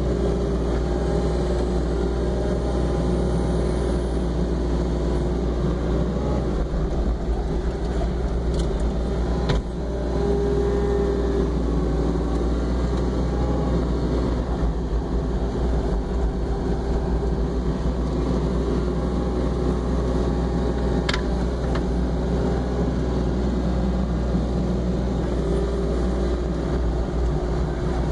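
Mini excavator's diesel engine running steadily under load, heard from the operator's seat, with a hydraulic tone that swells and fades as the machine swings and works the loader bucket. A couple of sharp knocks are heard, one about nine seconds in and one about twenty-one seconds in.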